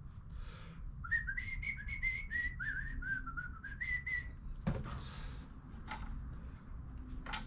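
A person whistling a short tune of quick notes, stepping up and down in pitch, for about three seconds. Then a single sharp knock.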